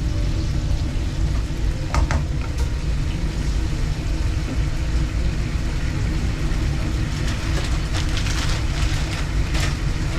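Strong storm wind rumbling against the food truck, a steady, fluctuating low rumble, with a few brief clatters about two seconds in and again near the end.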